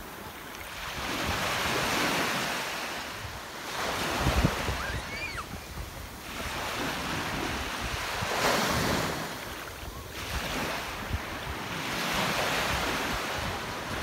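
Small surf waves breaking and washing up the sand, the wash swelling and fading every few seconds, with wind buffeting the microphone.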